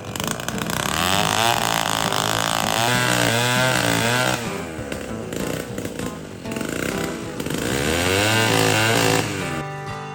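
Chainsaw revving as it cuts through timber blocking a forest track, its pitch swooping up and down. It runs at full revs twice, from about a second in and again later, easing off between and near the end.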